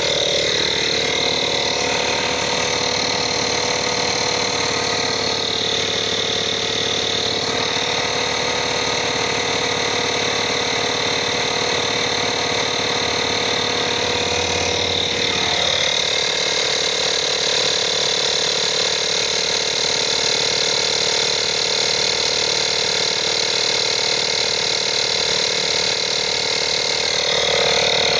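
INGCO digital portable tyre inflator running steadily, its motor-driven piston pump pushing air through the hose into a car tyre.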